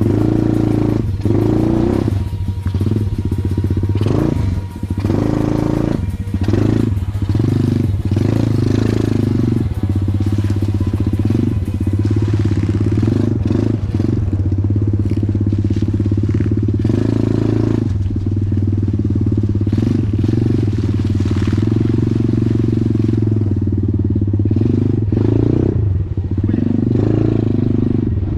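Off-road motorcycle engines revving up and down, mixed with background music.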